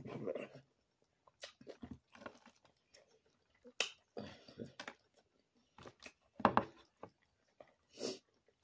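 Eating boiled crawfish: wet chewing and lip-smacking mouth sounds with short clicks of shells being peeled, coming in irregular bursts, the loudest about six and a half and eight seconds in.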